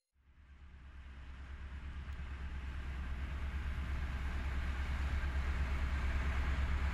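Outdoor ambient noise: a steady, heavy low rumble with a hiss over it, fading in over the first couple of seconds.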